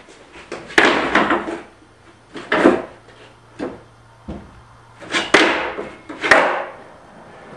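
Skateboard clacking on a low wooden bench and a concrete floor during tail stalls: several sharp knocks of the deck and wheels hitting wood and concrete, each followed by a brief scrape of the wheels rolling.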